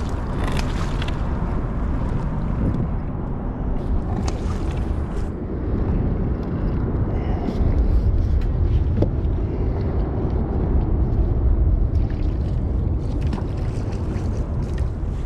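Steady low rumble with wind on the microphone, and a few short splashes and clicks as a hooked black drum is played up to the surface beside the kayak.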